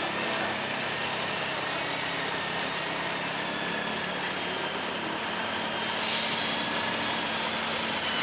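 A heavy DAF truck running, a steady engine hum under road noise. About six seconds in a loud hiss of air starts suddenly and keeps going, typical of a truck's air brakes.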